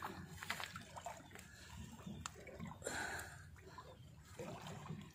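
Faint handling noises, small clicks and rustles, as a freshly caught needlefish is held and worked free of the line, with light water sounds.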